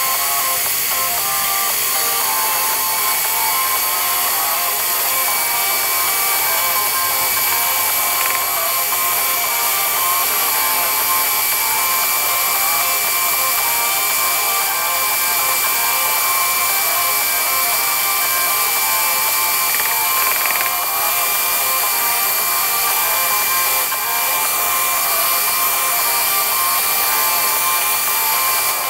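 Electric mixer running steadily, its beaters whirring through frosting in a stainless steel bowl, with a constant motor whine.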